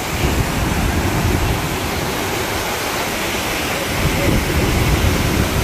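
Steady rush of churning white water from the Rhine Falls, an even, unbroken noise.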